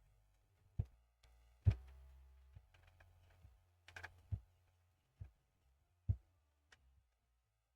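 Scattered light clicks and taps of small tools being handled on a repair bench, about nine in all, over a faint low hum in the first half.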